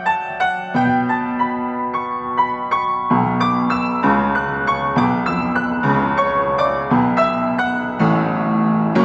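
Solo piano improvisation: quick repeated notes over low chords that change about once a second, growing fuller about three seconds in.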